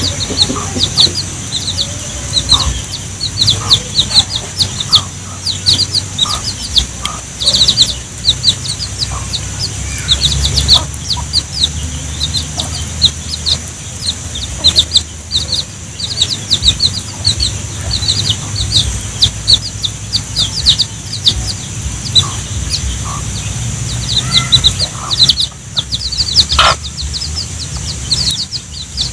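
Domestic chicks peeping continuously, many short high calls that slide downward, several every second, with the mother hen clucking now and then as she feeds them. A steady high hiss runs underneath.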